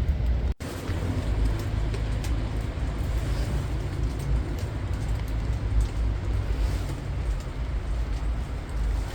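Steady rain with a heavy low rumble underneath. The sound cuts out for an instant about half a second in, then resumes unchanged.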